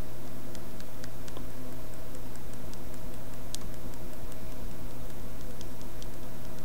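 Steady low background hum, with faint scattered small ticks as a clay-shaper tool presses and smooths a strip of green stuff putty on a cutting mat.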